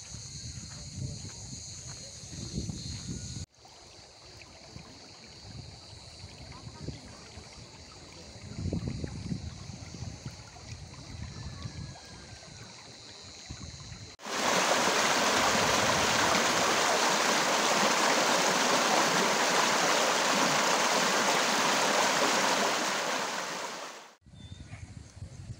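Shallow stream running over stones, followed about halfway through by a much louder, close rush of water splashing down a small cascade among rocks, which cuts off abruptly near the end.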